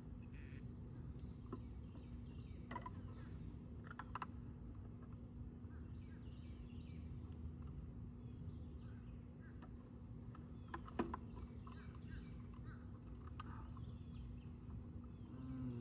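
A few faint clicks and knocks of batteries and a battery box being handled, over a steady low rumble and hum.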